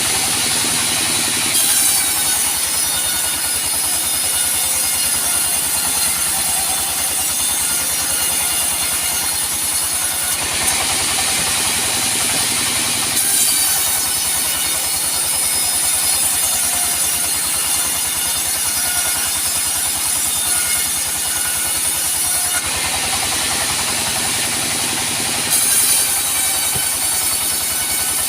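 Band sawmill sawing teak: a loud, steady machine drone with a high whine from the blade that comes in as each cut starts and drops out in short breaks between cuts, repeating about every twelve seconds.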